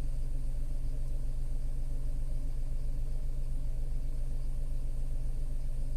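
Tata Altroz's 1.2-litre three-cylinder naturally aspirated petrol engine idling steadily when warm, below 1000 rpm, heard inside the cabin as a low, even hum.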